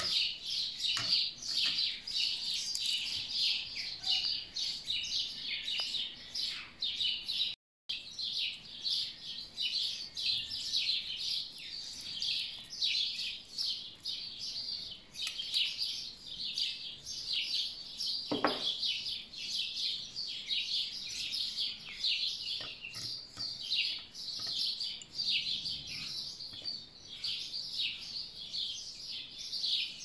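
Songbirds chirping and singing continuously in a dense chorus of short, high calls. The sound cuts out for a split second about eight seconds in.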